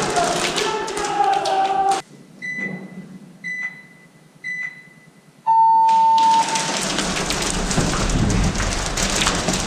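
Electronic start signal counting down: three short high beeps about a second apart, then one long lower beep, the cue that the round begins. Before and after it, a dense noisy din of voices and crackling.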